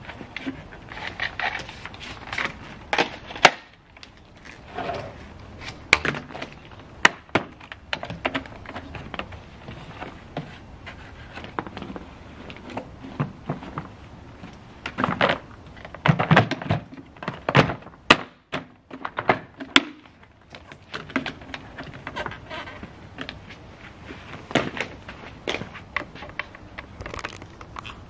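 Irregular plastic clunks, clicks and rustling from a Numatic Henry vacuum cleaner being taken apart and put back together by hand: the black motor head is unclipped and lifted off the red tub, the filter is handled, and the head is refitted. The clunks come in uneven clusters, with a dense run of loud knocks about halfway through.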